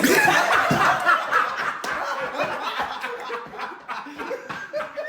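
People laughing hard, loudest in the first second or so and then trailing off into snickers.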